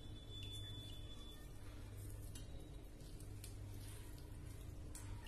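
Faint drips and soft squishing as water is squeezed out of a muslin cloth holding fresh paneer into a steel strainer, with a few light clicks over a steady low hum.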